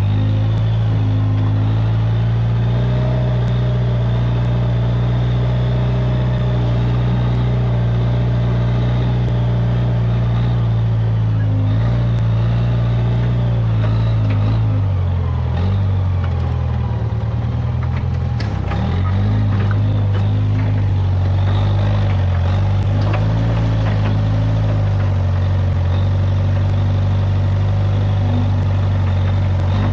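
Case 580G backhoe loader's diesel engine running steadily. Its pitch sags briefly past the middle, as if lugging under load, then picks back up.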